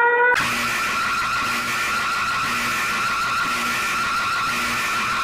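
Harsh, noisy screeching alarm tone of a mock emergency alert, wavering around one pitch, with a faint short low beep about once a second underneath. A rising siren tone cuts off abruptly just at the start.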